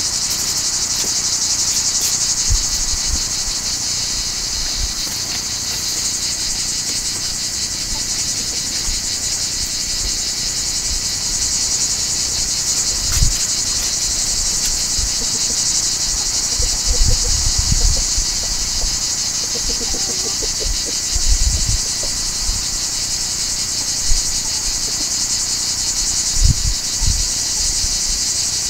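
A steady, unbroken chorus of insects buzzing at a high pitch, with a few short low thumps scattered through it.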